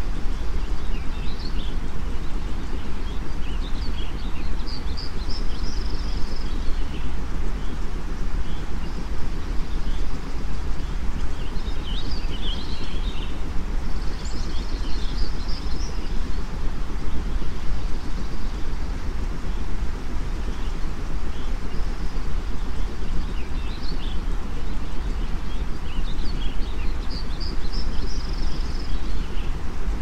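Steady white noise, heaviest in the low end, with a bird chirping over it in short bursts every few seconds.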